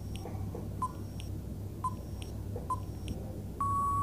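Quiz countdown timer sound effect: a short beep with a click about once a second, then a longer steady beep starting about three and a half seconds in as the time runs out.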